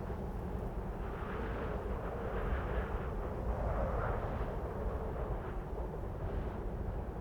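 Cold wind blowing in gusts over a steady low rumble, the whooshing swelling about a second in and easing off after about four seconds.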